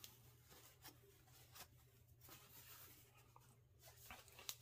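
Near silence: room tone with a faint low hum and a few soft, brief clicks.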